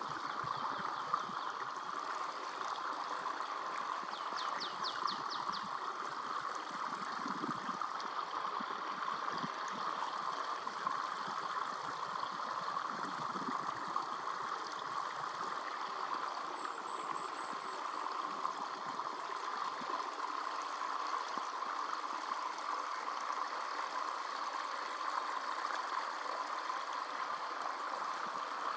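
Steady rush of running stream water throughout. About four and a half seconds in, a marsh tit gives a short, rapid run of high notes.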